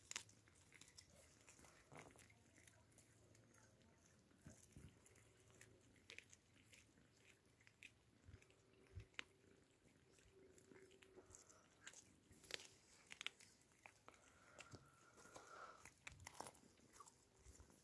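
Two cats chewing and crunching whole raw fish: faint, irregular crunches and clicks of teeth on flesh and bone.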